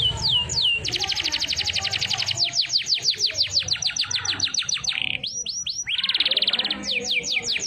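Domestic canary singing a fast, continuous song. Very rapid trills alternate with runs of quick descending whistles, each sliding down in pitch, several a second: the siren-like phrase (cengkok sirine) that canary keepers prize.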